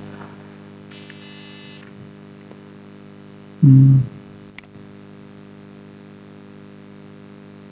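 Steady electrical mains hum with a hiss from the recording chain. About three and a half seconds in there is a brief low voiced sound, and just after it a single sharp click.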